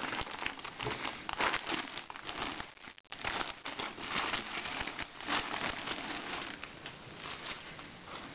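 Thin clear plastic polybag crinkling and rustling as hands open it and pull out folded clothes, with a brief break about three seconds in.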